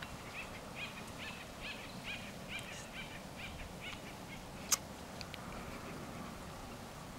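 A bird calling over and over in short chirps, about two to three a second, stopping about four seconds in. A single sharp click comes a little before five seconds in.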